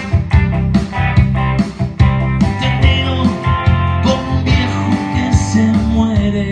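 Stratocaster-style electric guitar played in an instrumental passage of a pop song, over a steady beat and bass line.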